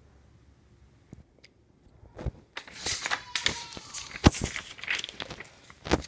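Quiet for about two seconds, then irregular footsteps with scuffing and knocking handling noise, including a few sharp thumps, as the recording phone is carried across a carpeted room.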